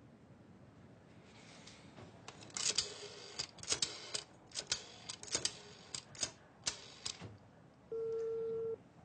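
A telephone clicking sharply over and over, an irregular run of about fifteen clicks, then a single steady beep of the line tone in the receiver lasting under a second near the end.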